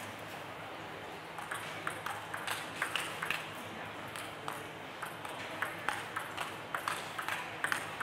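Celluloid-type table tennis ball clicking off the bats and the table in a fast doubles rally. The sharp clicks begin about a second and a half in and come several times a second.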